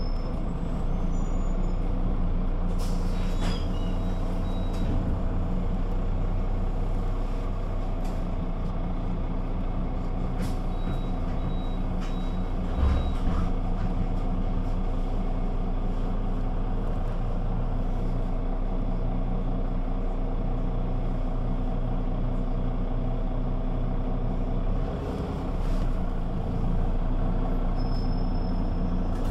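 Güleryüz Cobra GD 272 city bus running steadily at an unchanging engine speed. A few short high beeps and clicks sound over it, and there is a brief thump about thirteen seconds in.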